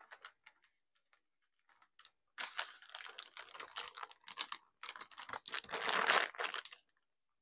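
Crinkling and rustling of plastic packaging being handled, in irregular bursts starting about two and a half seconds in, loudest near the end.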